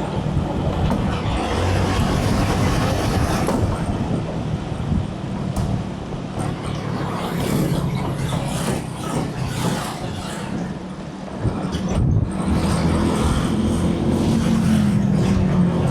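Vehicle on the move: a steady engine and road noise, with a brief lull about twelve seconds in.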